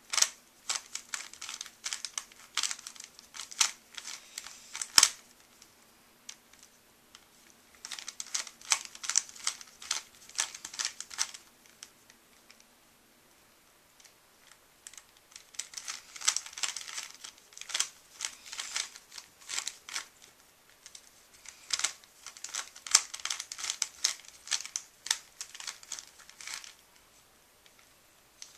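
A Rubik's Cube being turned by hand during a solve: fast plastic clicking and clacking as the layers are twisted, in bursts of several seconds with pauses of two to four seconds between them, and one sharper knock about five seconds in.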